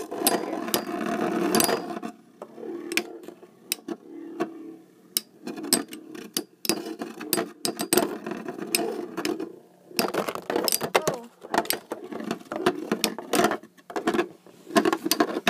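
Two Beyblade battle tops spinning in a plastic stadium, grinding steadily against the floor and clicking sharply each time they knock into each other.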